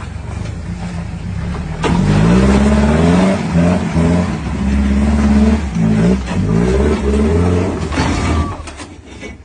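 Four-wheel-drive dual-cab pickup's engine running, then revved hard under load from about two seconds in as the truck climbs a steep rock ledge. The engine note rises and falls again and again, then eases off near the end with a few knocks.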